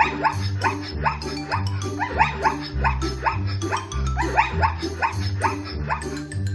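Background music with a stepping bass line, and short animal-like calls repeating several times a second over it.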